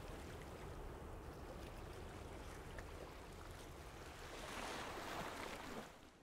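Faint ambience of calm sea waves washing, swelling slightly about four and a half seconds in, then fading out just before the end.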